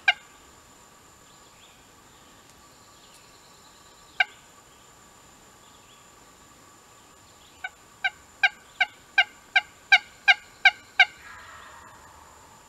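A hen-turkey call worked close by: two lone clucks about four seconds apart, then a run of about ten loud, evenly spaced yelps, roughly three a second. Right after the yelps, a fainter gobble from a wild turkey tom answers the call.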